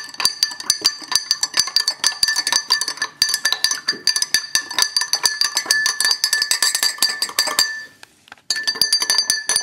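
A spoon stirring salt into water in a drinking glass, clinking rapidly against the glass, which rings with each strike. The clinking breaks off briefly near the end, then starts again.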